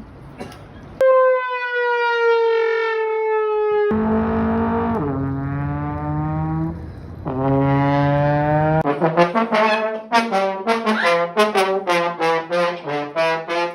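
Brass instrument, trombone-like, played as comic sound effects: a long, slowly sagging note, then two low held notes that drop in pitch, then a quick run of short notes.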